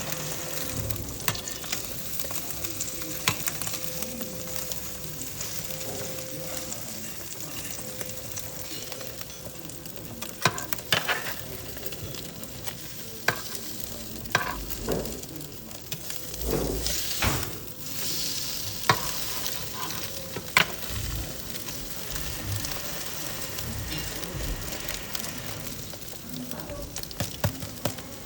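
Eggs frying in a pan, a steady sizzle, with occasional sharp clicks and knocks scattered through it.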